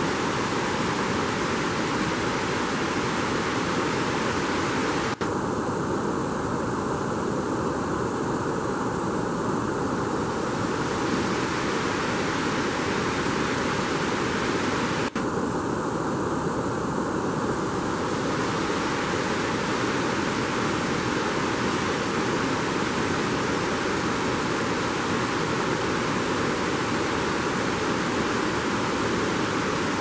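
Steady rushing of a rocky mountain river, an even, unbroken noise with two very brief dips about five and fifteen seconds in.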